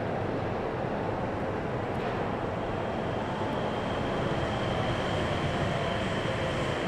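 A Nippori-Toneri Liner 300-series rubber-tyred automated guideway train running past close by on a curve, with a steady rumble of tyres and running gear. A high steady whine joins about two and a half seconds in, and the sound grows a little louder as the cars go by.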